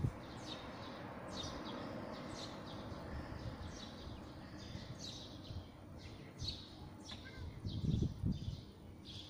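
Songbirds chirping and singing, short high notes repeated every second or so over a light steady wind. Low gusts of wind buffet the microphone at the start and again near the end.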